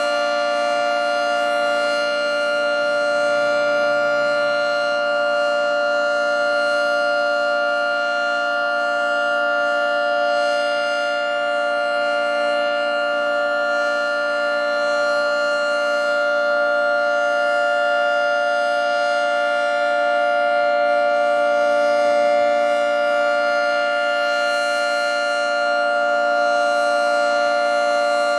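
Federal Signal 3T22 three-tone electromechanical siren sounding a steady chord at full speed, its pitch held level.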